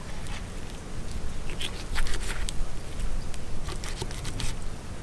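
Fillet knife slicing through a large permit's flesh as the head meat is lifted away, giving scattered wet crackling and ticking sounds.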